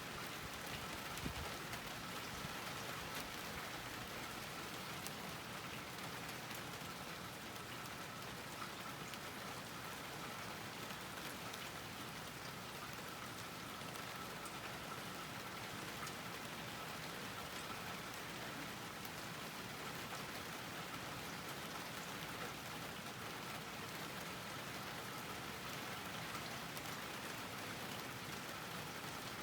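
Steady rain falling on a garden, an even patter of many small drops with a faint steady high tone underneath.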